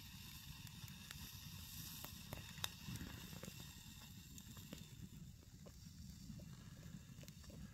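Small campfire crackling faintly, with scattered irregular pops and one sharper snap about two and a half seconds in, over a low steady rumble.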